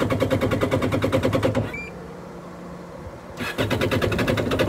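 Supercharged 1800 cc engine of a Yamaha GP1800 jet ski being cranked by its starter in two tries, with a short pause between, without catching. This is hard starting, which the mechanic puts down to the injectors.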